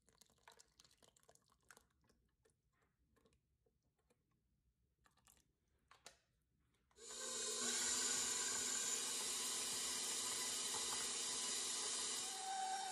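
KitchenAid Professional HD stand mixer switched on about halfway through, its motor running steadily as the dough hook mixes the wet ingredients into the flour; before it starts there are only faint clicks and small sounds of ingredients going into the bowl.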